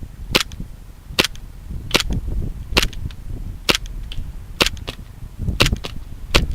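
Airsoft gun firing single shots: about nine sharp cracks, roughly one every 0.8 seconds, with two close together near the end.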